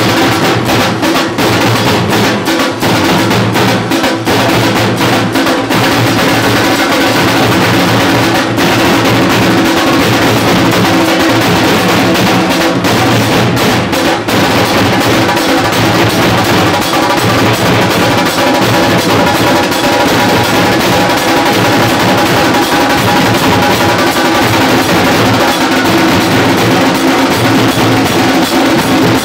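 A group of large stick-beaten drums, dhol-style, playing a loud, fast, unbroken rhythm.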